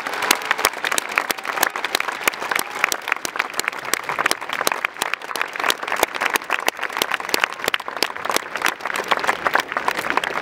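A large stadium crowd of football supporters applauding: many hand claps over a steady crowd noise.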